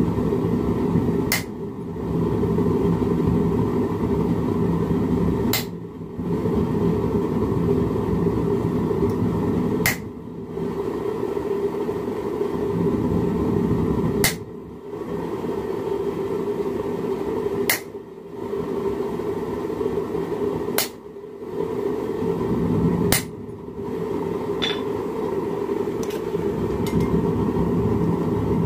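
Ball-peen hammer striking a chisel held against a hot steel leaf in a vise, cutting vein texture: seven sharp metallic strikes a few seconds apart, over the steady roar of a lit gas forge.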